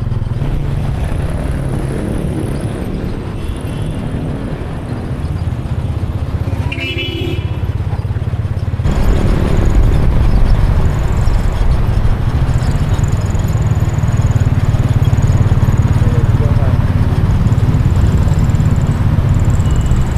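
Motorcycle tricycle's engine running while riding along a street, with steady road noise. It gets suddenly louder about nine seconds in and stays that way.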